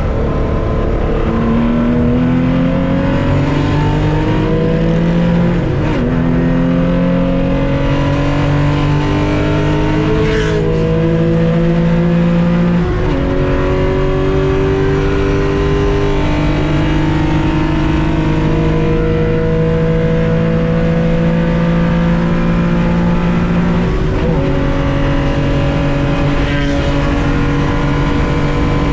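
1965 Porsche 911 2.0's air-cooled flat-six accelerating hard under racing load from inside the cockpit. The engine note climbs through each gear, with upshifts about six, thirteen and twenty-four seconds in, and the pitch rises more slowly in each higher gear.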